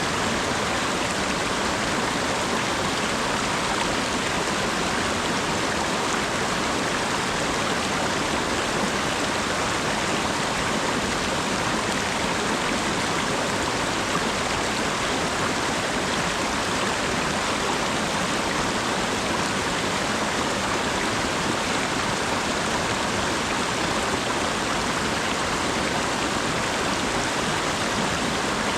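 Steady rain falling, an even unbroken hiss with no separate drops standing out.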